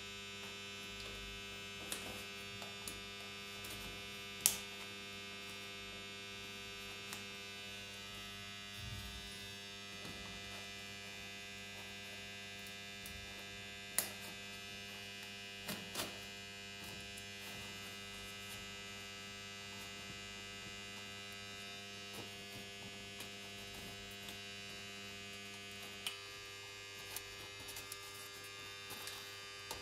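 Steady electrical hum, with scattered sharp clicks and taps from handling the foam RC plane's elevator and hinges, the loudest about four and fourteen seconds in.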